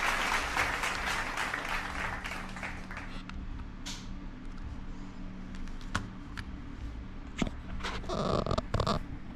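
Applause fading out over the first few seconds, then a few scattered sharp clicks over a low steady hum, with a brief louder sound near the end.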